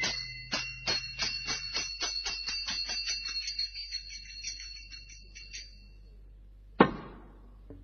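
Small bell-like cymbals struck in a ringing roll that speeds up and fades away as the dance music ends, followed by a single sharp knock near the end.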